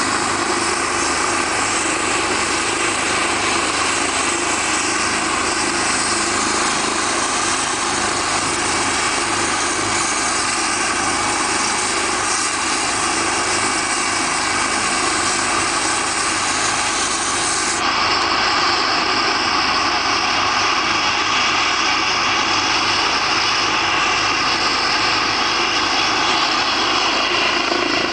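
Eurocopter EC 135 helicopter's twin turbine engines and rotor running steadily on the ground: an even rushing noise with a steady turbine whine.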